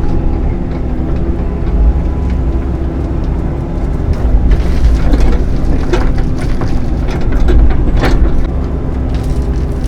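Midsize excavator's diesel engine running steadily under load, with scraping and clanking from the bucket working dirt from about halfway through; the loudest clank comes near the end.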